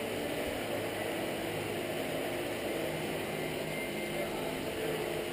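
Gas burner running with a steady roar under a cast iron pot of molten lead.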